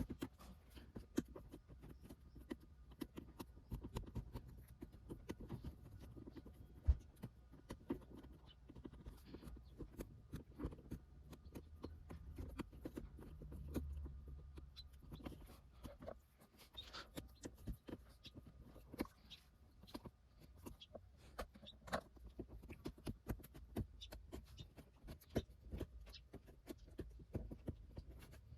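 Faint scattered clicks, taps and rustles of hands working on a car door trim panel, pressing anti-squeak mastic into the gaps, with one sharper click about seven seconds in.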